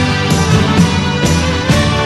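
Background music: a loud song with a steady beat and instrumental melody.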